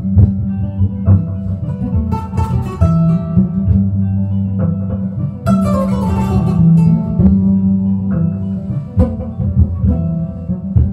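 Solo kora, the West African calabash harp-lute, plucked: a steady repeating bass line under a plucked melody, with a quick descending run of notes about halfway through.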